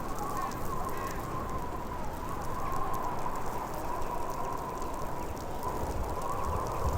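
Blizzard wind: a steady rushing hiss with a wavering, howling whistle, and a low gust swelling near the end.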